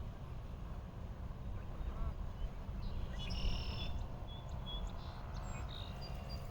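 Geese calling by a pond, a run of short high calls starting about halfway in, over a steady low rumble.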